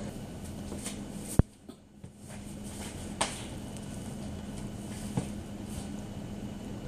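A steady low hum under even background noise, broken by one sharp click about a second and a half in and two fainter clicks later.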